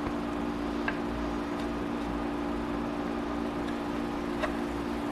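Steady low room hum from shop equipment, with two faint clicks of a screwdriver working small screws in the milling machine's spindle housing, about a second in and again about four seconds in.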